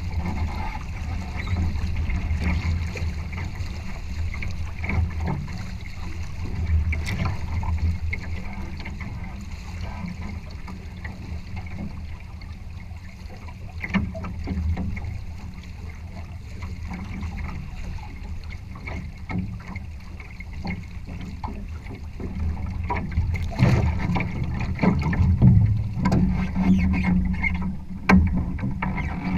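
Challenger sailing trimaran under way: a steady low rumble of water rushing along the hull, mixed with wind on the microphone. Scattered sharp knocks and slaps of water on the hull, busiest and loudest near the end.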